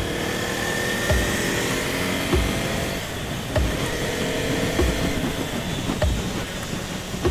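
Motorcycle running at road speed with wind noise, while a regular low thump sounds a little over once a second.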